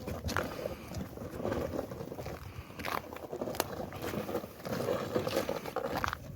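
Footsteps crunching and scraping on snow-covered ice, an irregular run of crunches with sharp clicks among them.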